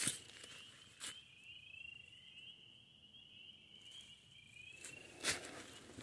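Footsteps crunching through dry dead leaves on a slope: a step at the start, another about a second in, and a heavier one near the end. A thin, high, wavering trill carries on in the background and stops a little before the last step.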